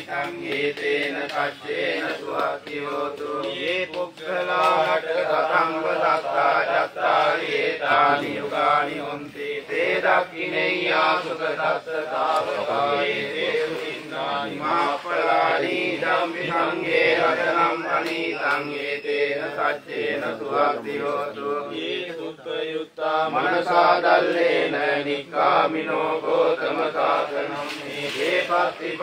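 Buddhist pirith chanting in Pali, a steady recited chant.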